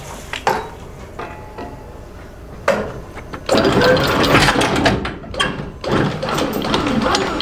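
Electric anchor windlass hauling in chain. After a few scattered knocks, a loud clatter of chain coming in over the gypsy starts about three and a half seconds in, with the anchor knocking up onto the bow roller. The clatter stops briefly about a second and a half later, then goes on.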